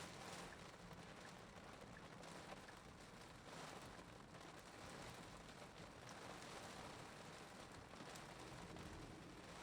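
Faint steady hiss of heavy rain and wet-road tyre noise heard inside a car's cabin.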